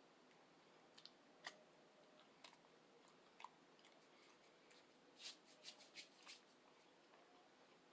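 Faint wet mouth clicks and smacks of a person chewing food close to the microphone: a few single clicks, then a quick run of about five a little past the middle.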